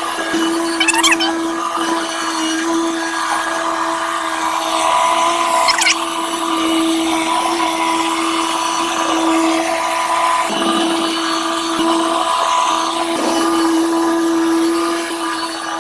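A small engine running steadily at a constant pitch, with a couple of brief high squeaks on top.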